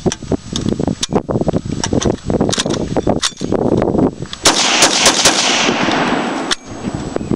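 M1919 Browning machine gun firing a string of single shots in semi-automatic mode, unevenly spaced and at times several a second.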